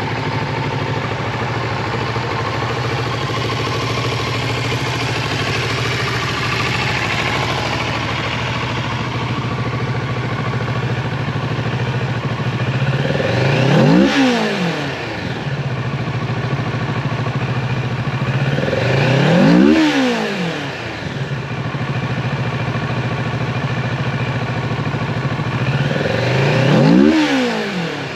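2021 Kawasaki Z650's parallel-twin engine idling steadily, then revved three times, each rev climbing quickly and dropping back to idle.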